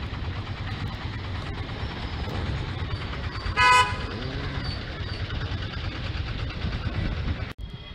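Outdoor road-traffic noise with a steady low rumble, and one short vehicle horn toot about three and a half seconds in, the loudest sound.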